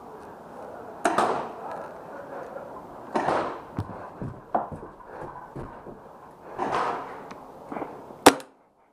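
One sharp shot from a Milsig M-series magazine-fed paintball marker near the end, the loudest sound, after several duller knocks and scuffs. The sound then cuts off suddenly.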